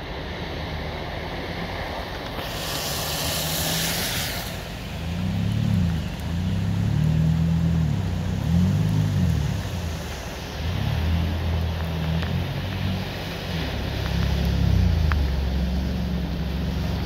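Cars driving through deep floodwater on a road. About two and a half seconds in there is a loud rush of spraying water as a minivan ploughs through. After that, low engine hum rises and falls over the steady wash of water as another car pushes through the flood.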